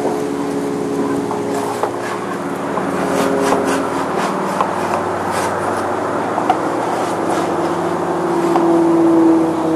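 Steady engine drone with several held tones, swelling louder near the end, with a few faint taps in between.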